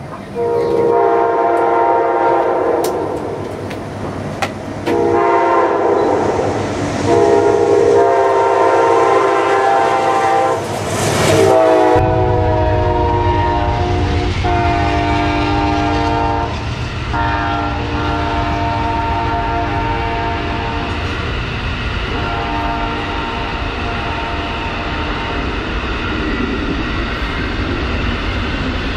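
Amtrak passenger train's locomotive air horn sounding a chord in a series of long blasts. About halfway through, the sound changes suddenly to the heavy rumble of the passenger train rolling past, with several more horn blasts over it.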